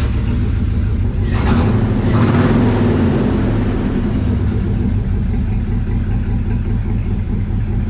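LS-swapped V8 in a 1954 Chevy, just started and running with cylinders 7 and 8 disconnected: it is louder for the first two or three seconds, then settles into a steady idle. It sounds no worse with those two cylinders cut, a sign that they were already misfiring.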